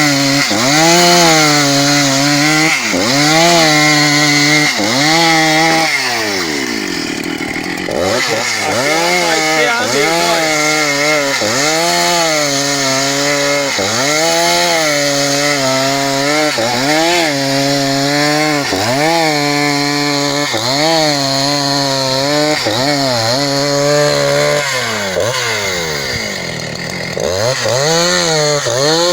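Husqvarna 272XP two-stroke chainsaw running at high revs while ripping a cedar log lengthwise into a plank. The engine pitch dips and recovers about once a second as the chain bites under load, with two deeper, longer sags, one about a quarter of the way in and one near the end.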